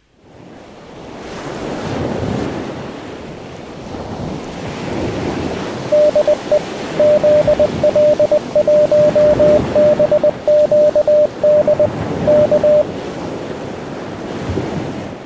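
Surf washing on a beach, fading in at the start. From about six seconds in, a single-pitched Morse code tone keys out dots and dashes for about seven seconds, spelling out the ham radio call sign ZL1BQD.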